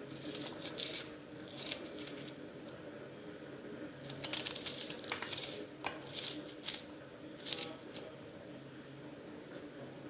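Knife cutting a red onion into pieces: short, crisp cuts at irregular intervals, with a quick run of them about four to five seconds in.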